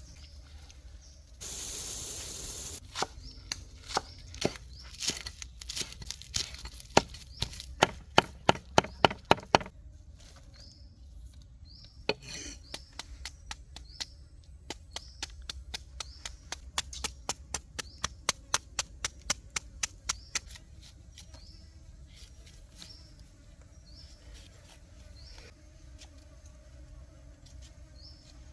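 A knife chopping food on a cutting board: a run of sharp chops that speed up and grow louder, then a second, longer run of quicker, lighter chops that stops about two-thirds of the way through. A brief hiss comes just before the chopping starts.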